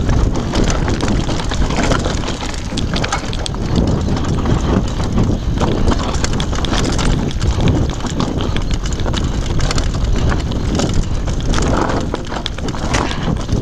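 Downhill mountain bike clattering over a loose rocky trail: tyres crunching on stones and the bike rattling with a constant, uneven run of knocks, over a low wind rumble on the microphone.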